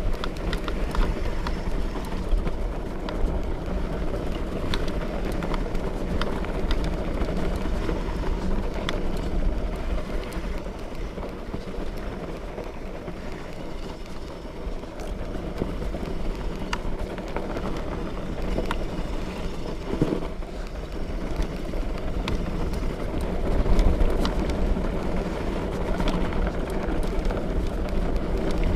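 Fat bike being ridden along a trail: a steady low rumble from the wide tyres rolling, with frequent small clicks and rattles from the bike.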